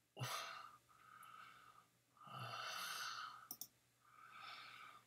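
A man breathing slowly and heavily close to the microphone: several long sighing breaths in and out. About three and a half seconds in there are a couple of quick mouse clicks.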